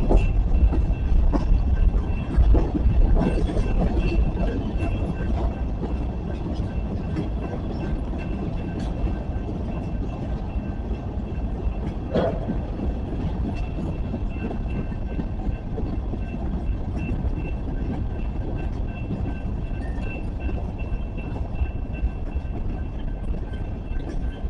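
Railroad cars rolling past, a steady rumble with scattered clicks of the wheels, a little louder in the first few seconds. A faint high tone pulses throughout.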